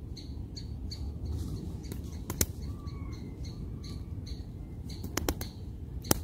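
Faint, short, high chirps repeating about twice a second, with a couple of brief squeaky glides near the middle. A few sharp clicks, the loudest sounds, stand out over a steady low rumble.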